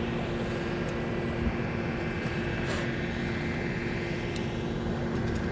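A steady mechanical drone: a low hum holding two constant tones over a rushing noise, unchanging throughout.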